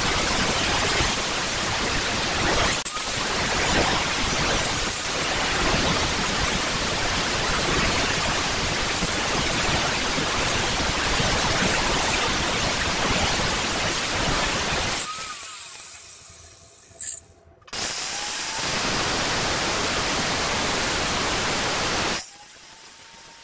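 Angle grinder with a thin abrasive disc cutting into an old steel circular saw blade, a loud, dense, harsh grinding hiss. It dies away briefly about two-thirds of the way through, starts again, and stops abruptly near the end.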